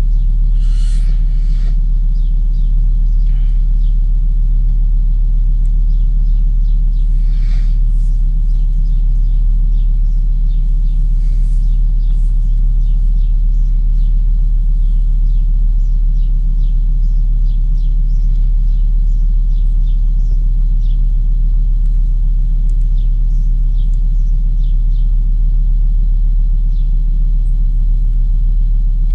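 2002 Volvo V70's 2.4-litre five-cylinder engine idling steadily, warming up after a cold start.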